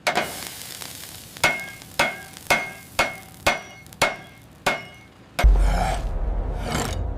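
Hammer blows on steel rivets, about two sharp ringing strikes a second, followed a few seconds in by a loud low rumble.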